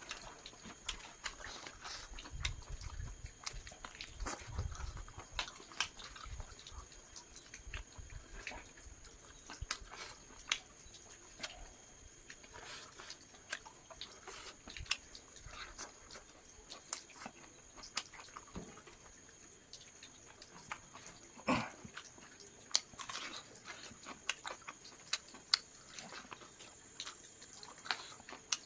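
Close-up mouth sounds of a person chewing and biting cooked chicken, with irregular wet clicks and smacks. A sharper crack comes about 21 seconds in.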